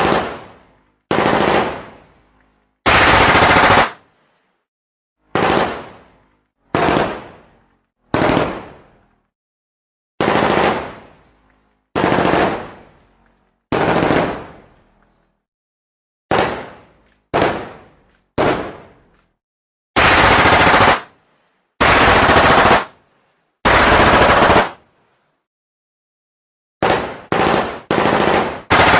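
Gunfire sound effects: a string of separate shots and short bursts, each trailing off, with silent pauses between. Several sustained bursts of automatic fire last about a second each, and a quick run of shots comes near the end.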